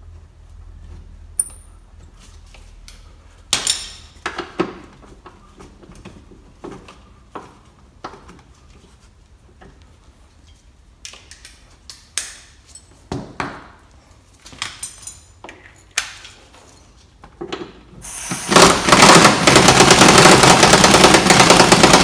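Scattered clinks and knocks of hand tools, sockets and bolts against metal, then about 18 seconds in an impact wrench hammers for about four seconds, running a suspension bolt in on the car's rear.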